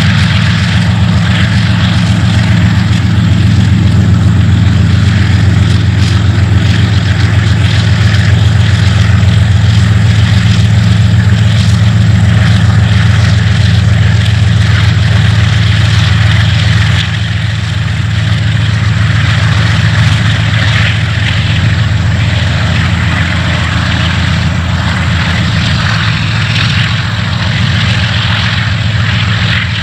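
Two KiwiRail diesel-electric locomotives hauling a coal train past, their engines running with a steady low drone over the noise of wagon wheels on the rails. The engine sound drops a little about halfway through as the locomotives draw away.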